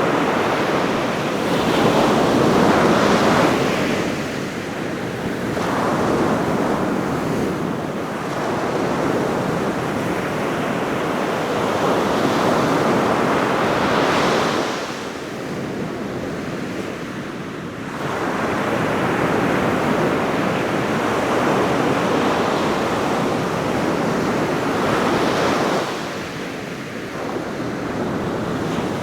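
Ocean surf on a beach: waves breaking and washing in a continuous rush that swells and eases. It drops off briefly three times, about four seconds in, around the middle and near the end.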